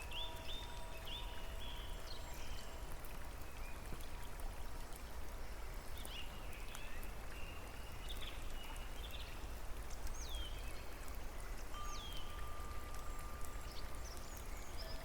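Steady patter of rain or running water, with birds chirping throughout and two quick falling whistles about ten and eleven seconds in. A few faint long held tones sound underneath.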